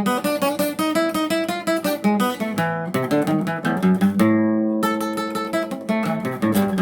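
Acoustic guitar (violão) played solo in a chorinho: quick runs of plucked notes, with one chord held and left to ring briefly a little past the middle before the runs resume.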